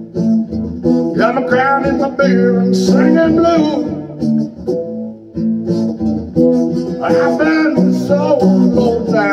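Acoustic guitar strummed through a country song, with a man's voice singing a line about a second in and another about seven seconds in.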